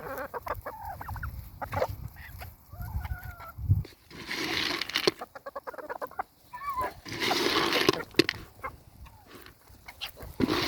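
Chickens clucking, with short calls and two harsh, drawn-out squawks about four and seven seconds in.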